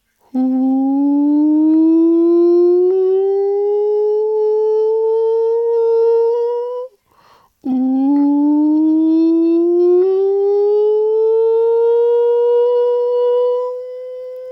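A person's voice holding two long toned hums, each sliding slowly upward by about an octave, with a short breath between them; the second levels off into a steady held note that grows quieter near the end.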